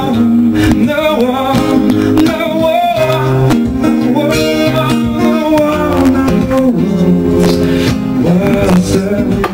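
A man singing a song into a microphone, accompanied by strummed acoustic guitar, played live.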